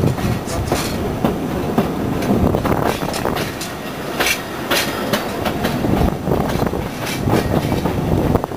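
Carriage of the narrow-gauge Talyllyn Railway steam train running, with a continuous rumble and irregular clicks and clacks of the wheels on the track.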